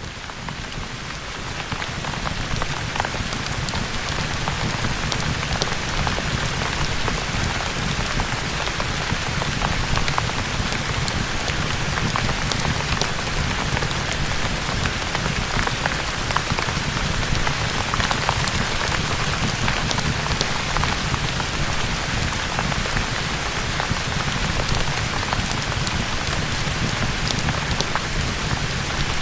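Steady, dense rain with many small sharp drop ticks, fading in over the first couple of seconds and then holding even.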